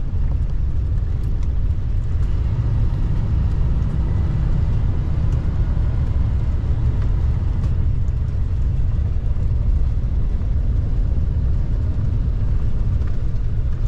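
Motorhome engine and road noise from inside the cab: a steady low rumble while rolling down a steep logging road in second gear, the engine holding the heavy rig back to a slow speed.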